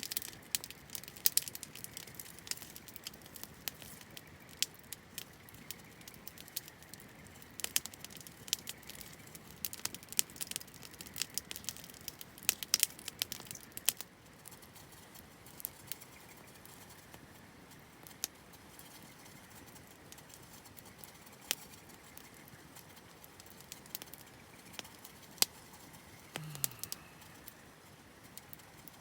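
Campfire wood crackling and popping: irregular sharp pops, frequent in the first half and sparser later.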